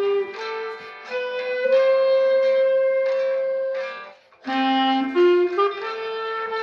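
Moresk M61 B-flat clarinet playing a slow hymn melody in long held notes over a recorded classical guitar accompaniment. A short pause for breath about four seconds in, then the next phrase steps upward.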